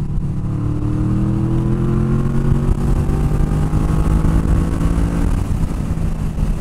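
2009 Yamaha VMax's V4 engine accelerating on part throttle at highway speed, its pitch rising steadily for about five seconds and then levelling off.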